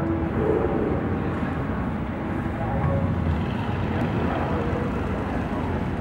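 Volkswagen Golf R32's 3.2-litre VR6 engine running steadily at low revs as the car rolls slowly up to the drag-strip start line.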